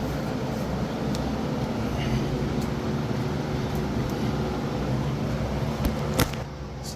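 A steady mechanical hum with a few light clicks and knocks, the sharpest about six seconds in.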